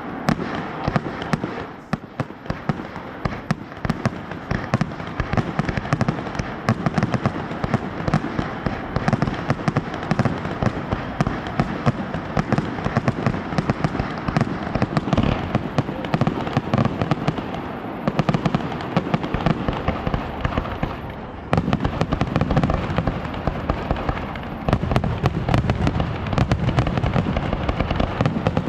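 Fireworks display going off in rapid, dense succession, many bangs and crackles overlapping. The booming grows heavier in the last several seconds.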